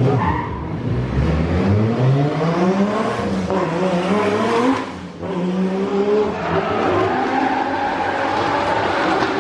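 Drift car's engine revving hard, its pitch climbing for a few seconds, dropping briefly about five seconds in, then pulling up again, with tyre skid noise under it.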